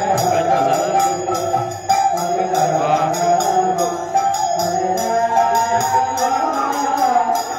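Naam kirtan devotional music: a group chanting over a steady beat of small hand cymbals, struck about three times a second.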